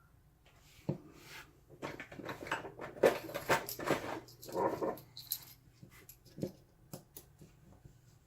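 A dog whining and whimpering in a run of short cries, with a few sharp clicks around it.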